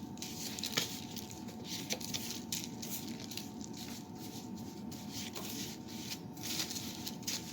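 Stirring a thick mix of chunky peanut butter, bacon grease, cornmeal and oats in a bowl: irregular squishing and scraping strokes with a few sharp clicks.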